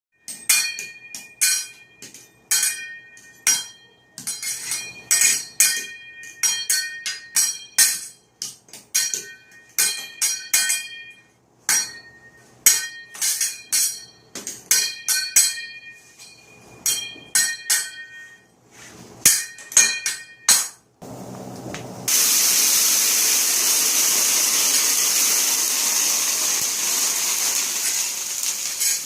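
Teppanyaki chef's metal spatulas clanging on each other and on the steel griddle in a fast drumming rhythm, each strike ringing. About 21 seconds in the clanging stops and a steady loud sizzle of food frying on the hot griddle takes over.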